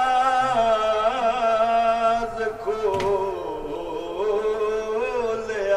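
A man chanting an unaccompanied melodic religious recitation, holding long notes with wavering ornamental turns. A brief click about three seconds in.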